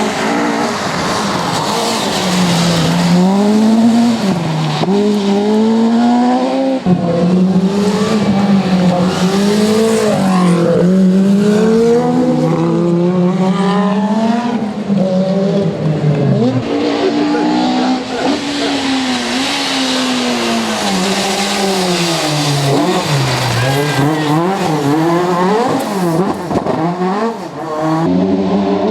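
Rally car engines revving hard through the gears, pitch climbing and dropping repeatedly as the cars accelerate and brake, with some tyre squeal. The sound changes abruptly twice, as one car's run gives way to another's.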